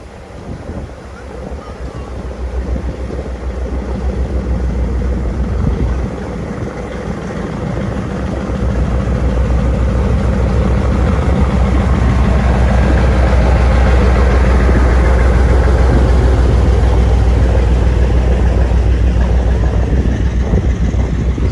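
A vehicle on the move: a loud, steady low rumble of engine and road noise that builds over the first ten seconds or so and then holds steady.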